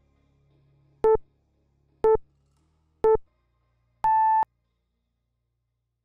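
Interval timer countdown: three short beeps a second apart, then one longer, higher beep an octave up, signalling the end of the timed exercise interval.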